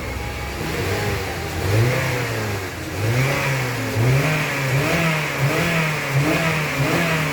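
Honda BR-V's 1.5-litre four-cylinder petrol engine revved in repeated blips, its pitch rising and falling several times, as the engine is checked after a tune-up and oil change.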